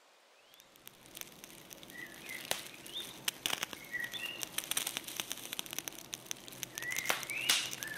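Birds chirping, short rising calls repeated several times, over a steady crackle of many small clicks. The sound fades in about half a second in.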